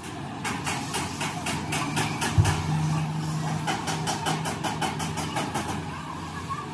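Gravity-feed paint spray gun hissing in quick pulses over the steady hum of a running machine, with one thump about two and a half seconds in.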